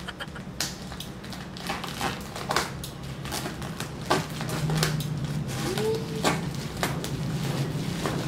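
Scissors snipping through bubble wrap and paper-wrapped parcel packaging, the plastic crinkling and crackling in irregular sharp clicks.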